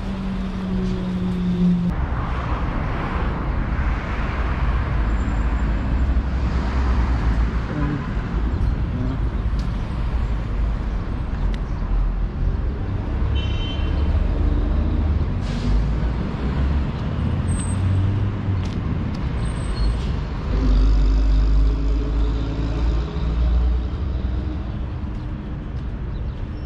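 City street traffic: car engines running and passing over a steady low rumble, with a louder stretch about twenty seconds in.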